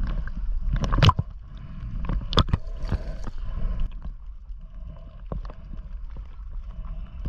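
Sea water sloshing and gurgling around a camera held half-submerged at the surface, with sharp splashes about one second and two and a half seconds in.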